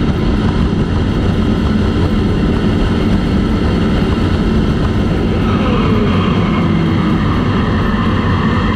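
Yamaha motorcycle riding along a road: steady engine and road noise with heavy wind rush on the microphone.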